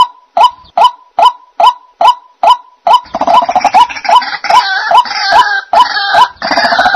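White-breasted waterhen calling: a regular series of short, downward-bending notes, a little over two a second. About three seconds in, a louder, harsher chorus of overlapping croaking calls joins them.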